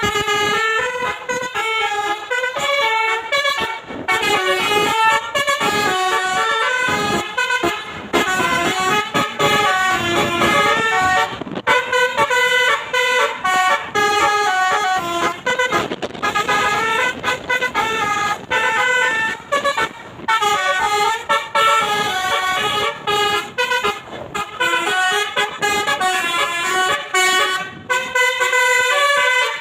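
Basuri 'telolet' musical air horn driven by a DAV melody module, playing a fast tune of short notes that step up and down, with brief breaks between phrases.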